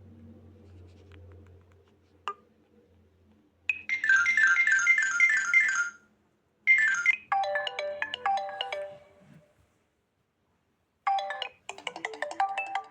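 Alcatel Pixi 3 (4) smartphone playing its built-in tones one after another: a fast, repeating run of bright notes, then a melodic tone that fades out, then another melody starting near the end. A single click about two seconds in.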